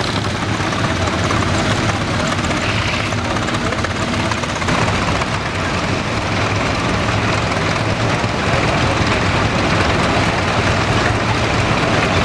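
Vintage crawler tractor engines running as the tractors drive slowly, a steady low engine note that grows a little louder about halfway through.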